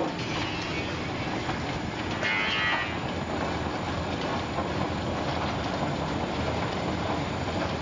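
Automatic chicken feet peeling line running: the stainless-steel roller peeler, mesh conveyor and gear motor make a steady mechanical rattle and rumble, with a brief higher-pitched noise about two seconds in.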